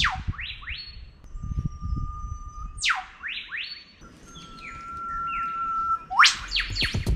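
A songbird singing the same phrase three times, about every three seconds: a long, steady whistle, then a sharp note sweeping steeply down, then two or three quick rising whistles. A low rumble runs underneath.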